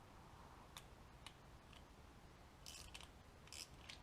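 Faint clicks and two short scrapes of a hand tool working at a mower carburetor's fuel bowl nut, which is stubborn to come out.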